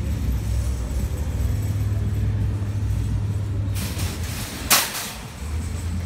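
Low, steady rumble of an idling vehicle engine. From a little over halfway a hiss comes in, with one short, sharp burst of hiss near the end.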